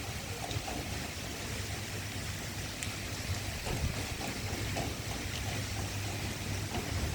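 Steady rain hiss with a constant low rumble underneath.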